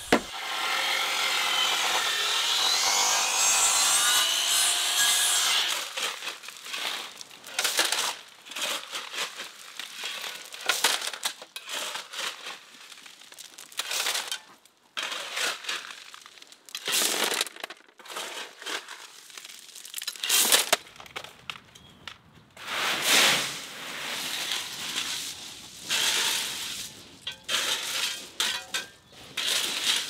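Building-site work sounds: a steady rasping for about the first five seconds, then irregular scrapes and crunches of a shovel digging into a pile of gravel and tipping it into a metal wheelbarrow.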